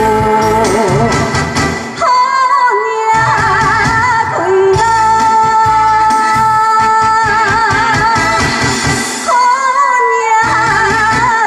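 A woman singing live into a handheld microphone over amplified music with a steady beat, holding long notes, some with a wavering vibrato.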